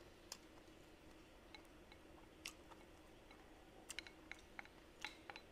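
Faint mouth sounds of a person chewing food: scattered short wet clicks, a few at first and coming closer together about four seconds in.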